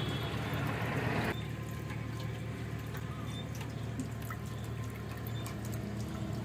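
Diesel trickling and dripping out of a lorry's brim-full fuel tank, spilling over because it was filled to the top rather than leaking. A louder rush for about the first second, then fainter dribbling with small drips over a steady low hum.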